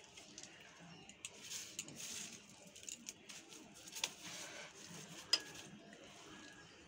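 Hands handling freshly cut snakehead fish and its roe on newspaper: soft handling noises with scattered light clicks, the sharpest a little past five seconds in.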